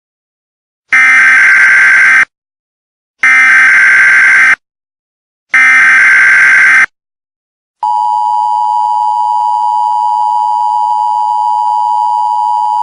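Emergency Alert System header: three bursts of SAME data tones, a warbling digital screech each lasting about a second and a quarter, followed about eight seconds in by the steady two-tone EAS attention signal. Together they announce the start of an emergency alert broadcast.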